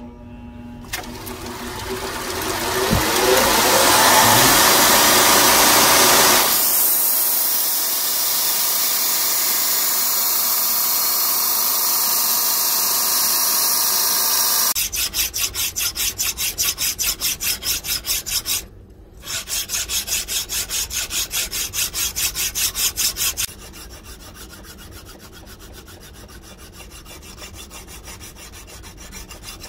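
Belt grinder grinding a steel knife blade: a loud, steady grinding noise that builds over the first few seconds, then pulses in a fast even rhythm of about four beats a second, with one short break. Near the end it gives way to quieter, quick hand-filing strokes on the blade.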